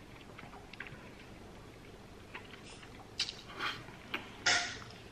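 A person eating spaghetti bolognese: quiet chewing with a few faint clicks, then three short, louder eating noises in the last two seconds.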